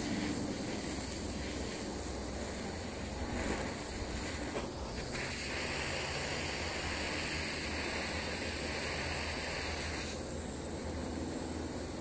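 Handheld gas torch burning with a steady hiss while it heats a copper cable lug for soldering. The hiss starts suddenly about five seconds in, just after a couple of clicks, and cuts off about ten seconds in, over a steady background hiss.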